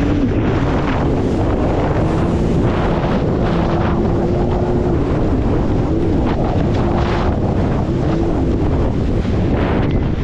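Jet ski engine running at speed, its note rising and falling a little, under heavy wind buffeting on the microphone and rushing water.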